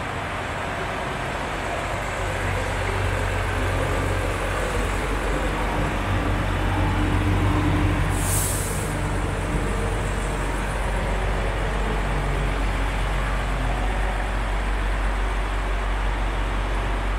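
Volvo FH 500 truck's 13-litre six-cylinder diesel idling steadily, a constant low hum. About eight seconds in there is a short hiss of released compressed air.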